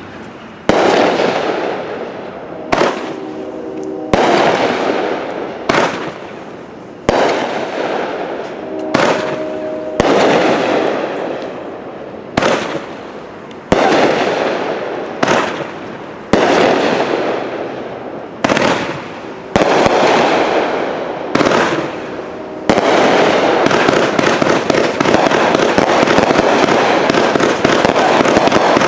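A 42-shot, 500-gram consumer firework cake firing its shots one at a time, about one every second or so, each a sharp bang that trails off. About two-thirds of the way through it breaks into a rapid-fire finale, the shots running together in one continuous barrage.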